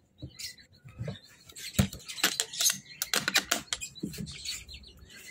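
Knocks and clicks of a wooden egg incubator's lid being shut and handled, with its metal slide bolt, the loudest knock about two seconds in; caged birds chirp in the background.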